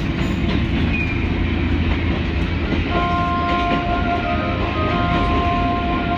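Steady rumble of the Wakayama Electric Railway umeboshi train running, heard inside the car; about halfway through, the in-car electronic chime begins, a melody of clear sustained notes over the running noise.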